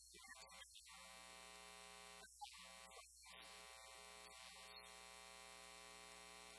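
Near silence with a faint steady electrical buzz, mains hum, that cuts out briefly a few times.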